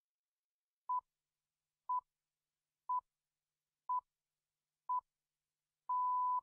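BBC time signal pips: five short, steady high beeps exactly a second apart, then a longer sixth pip. The long last pip marks the exact time.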